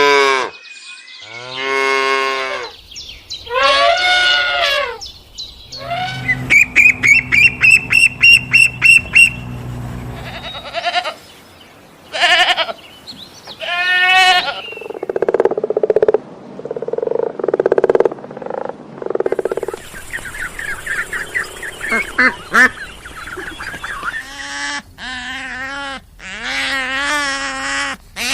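Several different farm animals calling one after another, with a quick run of about a dozen short calls about a third of the way in and wavering calls near the end.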